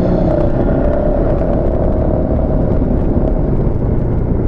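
Honda Forza MF15 scooter's single-cylinder 250 cc engine running steadily under way, with wind noise on the microphone.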